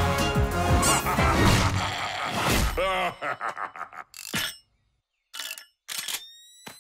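Cartoon soundtrack: busy action music for about three seconds, then it breaks off into short comic sound effects, several separate thuds with a brief silence between them, and a short rising tone near the end.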